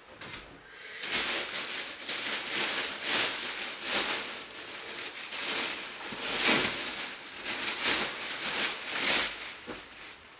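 Rustling and crinkling of clothes being handled, swelling and fading unevenly.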